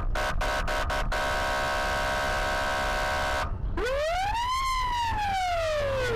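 Police car siren cycling through its modes: a rapid on-off chopped tone for about a second, then a steady tone for about two and a half seconds, then after a short break a wail that rises and falls, over a low vehicle rumble.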